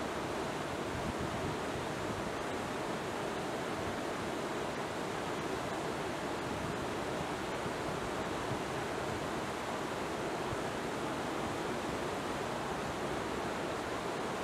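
Steady rush of water: an even noise that does not change or break.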